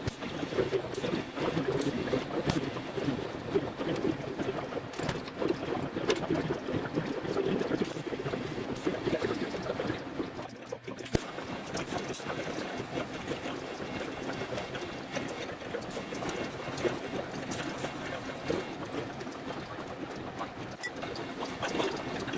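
TIG welding arc on a steel engine-mount bracket, running steadily with scattered crackling clicks as filler rod is fed in; the arc breaks off briefly about ten seconds in and then restarts.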